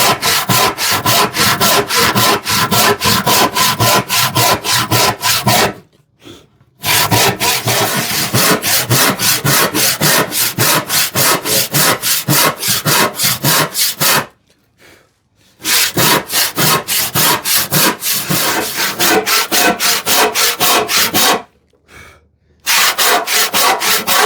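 A 10 TPI Spear & Jackson hand saw, filed to rip teeth, crosscutting a glued-up hardwood panel in quick, even strokes. The cut stops briefly three times, about 6, 14 and 22 seconds in.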